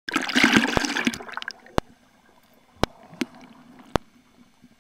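Water splashing and gurgling for about a second and a half, fading out, followed by a few sharp, isolated clicks.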